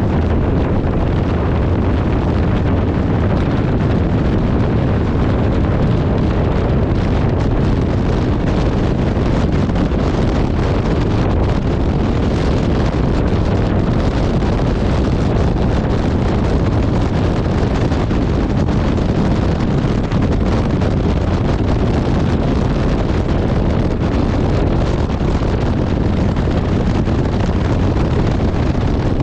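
Kawasaki VN1600 Mean Streak V-twin motorcycle running steadily at cruising speed, mixed with heavy wind noise on the handlebar camera's microphone.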